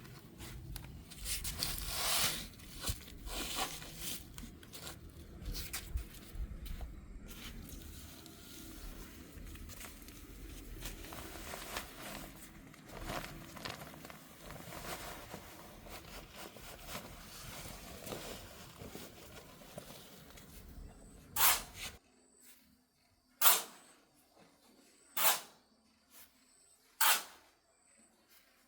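Irregular handling knocks and rustling, then, after an abrupt drop in the background, sharp strikes at an even pace of about one every two seconds.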